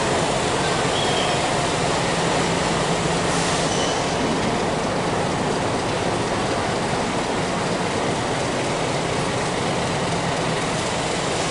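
Passenger train cars rolling through on steel rails: a steady rush and rumble of wheels on track, with a few brief, faint wheel squeals.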